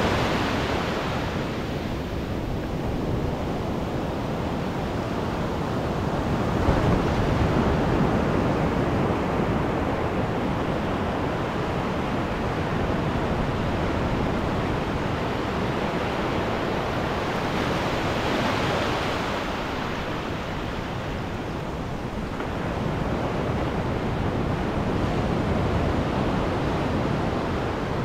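Ocean surf breaking and washing up the sand close by, a continuous rush that swells and eases with each incoming wave, about four surges.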